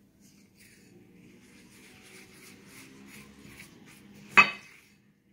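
Silicone spatula stirring thick melted dark chocolate with chopped roasted almonds in a glass bowl: soft, rhythmic scraping, about three strokes a second, then a single sharp knock about four seconds in.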